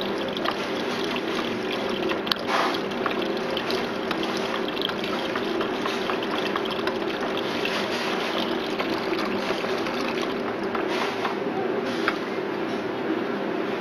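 Sodium hypochlorite solution poured in a thin stream from a glass beaker into a plastic bucket of effluent, trickling as it is stirred, over a steady background hum.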